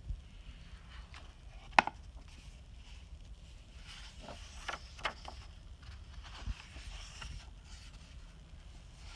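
Hardcover sketchbook being opened and its pages turned by hand on a wooden table, with one sharp tap about two seconds in and a few short paper flips and rustles in the middle.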